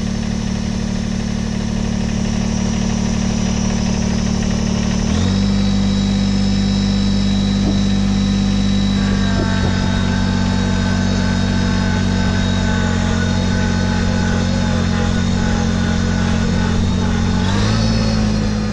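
Kubota BX1880 compact tractor's three-cylinder diesel engine running steadily while the tractor drives along. The engine pitch steps up about five seconds in and again near the end, and a thin higher whine joins partway through.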